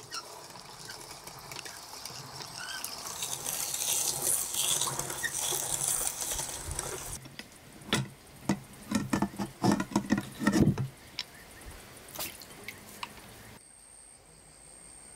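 Hand-cranked metal meat grinder mincing onion: a wet squelching as the pulp is forced through the plate, then a run of clunks and knocks from the turning crank about eight to eleven seconds in. Near the end a steady high insect trill takes over.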